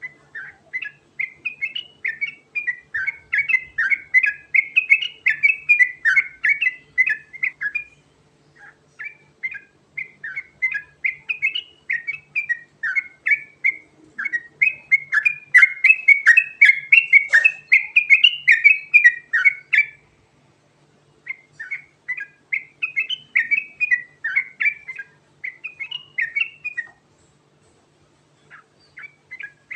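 Yellow-vented bulbul (trucukan, the 'garuda' type) singing a long rolling song: fast runs of short chattering notes, broken by brief pauses into four stretches, the loudest in the middle.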